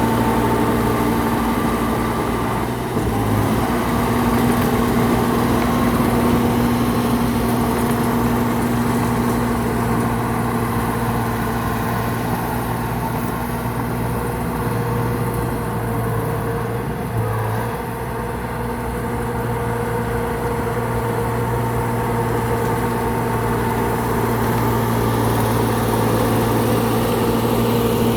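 Heavy diesel engine of construction machinery running steadily at a constant pitch, with a brief change in tone about 3 seconds in and again about 17 seconds in.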